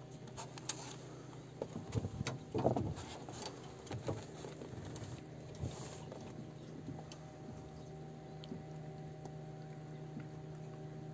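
Knocks and taps from a piau being landed and unhooked in an aluminium boat, a cluster of them loudest about two to three seconds in, then only scattered light clicks. Under it runs a steady low hum.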